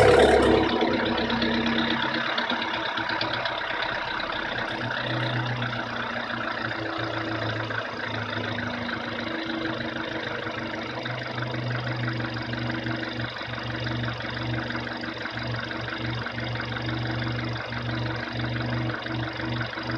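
Volkswagen Scirocco 1.4 TSI turbocharged four-cylinder petrol engine idling steadily after a cold start. This is the cold-start noise the owner reports as a problem.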